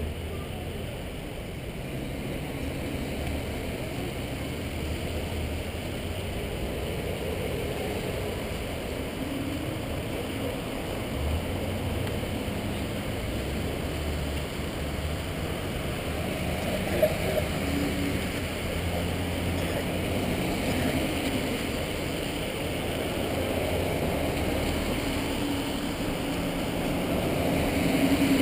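Vehicles of a police procession driving slowly past, a steady engine rumble that grows a little louder near the end.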